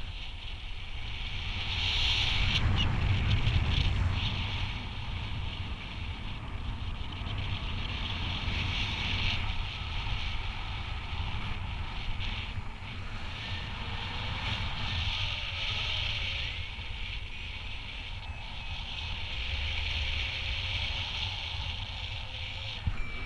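Airflow of paraglider flight buffeting the microphone: a steady low rumble with a hiss over it, gusting louder about two to four seconds in.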